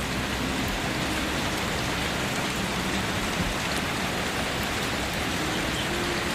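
Steady rain falling, an even hiss of many drops with no gaps or changes.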